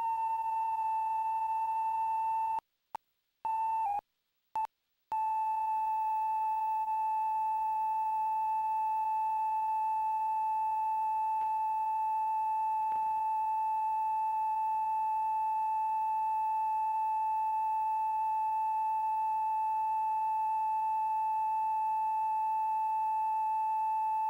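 Steady reference test tone that goes with the colour bars at the head of a VHS tape: one pure, unchanging beep-like pitch. It cuts out in a few short gaps about three to five seconds in, with a slight sag in pitch, and stops abruptly at the end.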